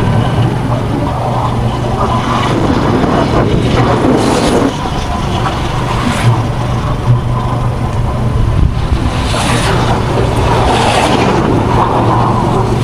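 A vehicle's engine running steadily while moving along a road, with road noise and a few brief rushes of noise as traffic or wind goes by.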